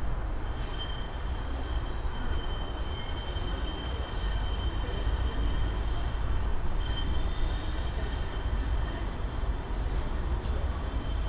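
Tram's steady low rumble, with a thin high whine that starts about a second in and comes and goes.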